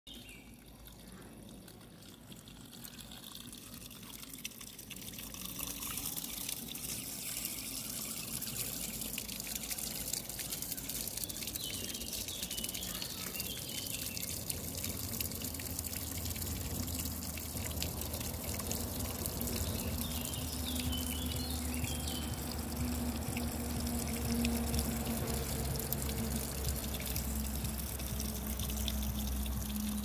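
Water trickling from the small pipe spout of a stone garden fountain into its basin: a steady splashing trickle that grows louder over the first few seconds. Faint bird chirps come through a few times.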